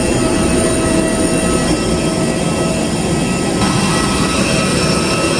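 Jet airliner noise on the apron: a steady rushing drone with several fixed whining tones over it.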